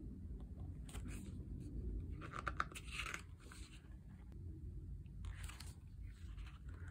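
Pages of a small paperback photobook being turned by hand: a few short paper rustles and flaps, the loudest about three seconds in.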